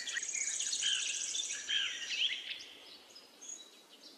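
Birds chirping, many short call notes overlapping, with a rapid high trill above them; the calls fade away after about two and a half seconds, leaving a faint hiss.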